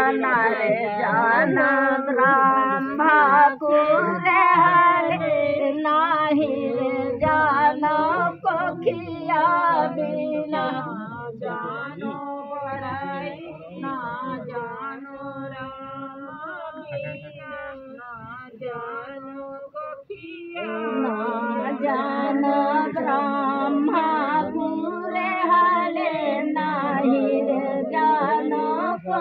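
Women singing a rural Hindi folk song (dehati geet) without instruments, a song for the bamboo-planting (bans gadna) rite. The singing softens in the middle and swells again about two-thirds of the way through.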